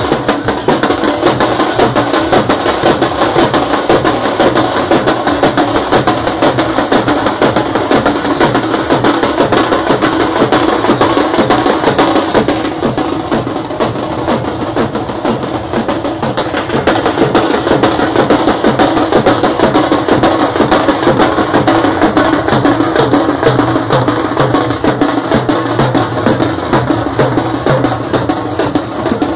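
A group of drummers beating cylindrical stick drums in a loud, fast, continuous rhythm, easing off a little for a few seconds near the middle.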